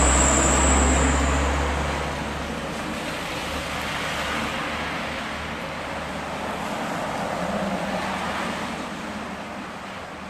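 Road traffic: a vehicle passing close, its low rumble loudest at the start and fading after about two seconds, then steady traffic noise slowly dying away.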